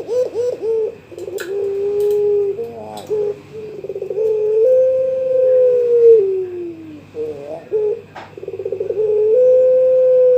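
Young puter pelung dove calling to challenge a rival: quick rippling coos, then two long drawn-out coos that each fall in pitch at the end.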